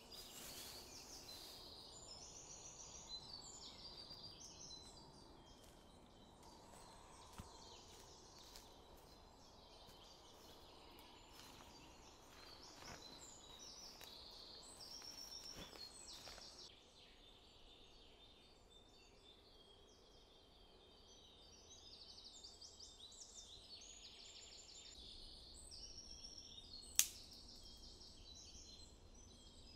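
Faint outdoor ambience with distant birds chirping on and off, and a single sharp click near the end.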